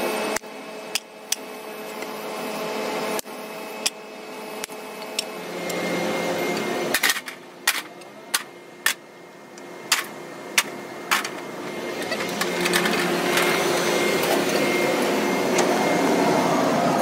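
Metalworking machinery running with a steady hum that swells in level, broken by scattered sharp knocks. About halfway through comes a quick run of sharp metal knocks, then a louder, even rushing machine noise builds up.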